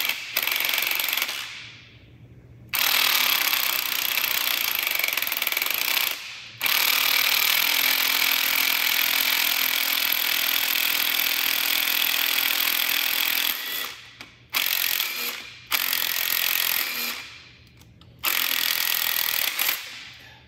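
Cordless impact driver hammering on jammed double nuts, trying to back a corroded cylinder-head stud out of a 1966 MG Midget engine. It runs in a string of pulls, a few seconds each, the longest about seven seconds in the middle, with short pauses between. The stud is seized with corrosion and resists all the way.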